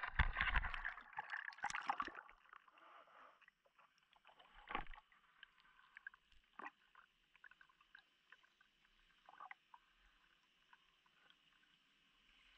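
Camera rig going into the lake: about two seconds of loud splashing and sloshing at the surface, then muffled underwater quiet with a faint hiss and scattered clicks and knocks as the rig sinks. The strongest knock comes a little before five seconds in.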